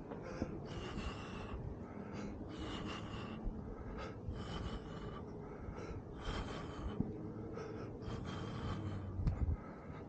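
A man breathing heavily close to the microphone, one breath about every two seconds, each with a thin whistling note, over a steady low rumble.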